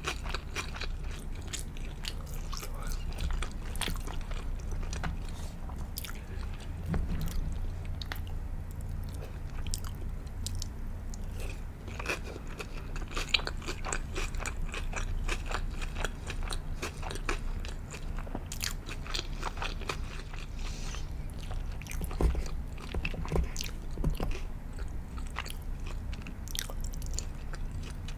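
Close-miked chewing and biting of sushi and sashimi: a steady stream of irregular wet clicks and crunches.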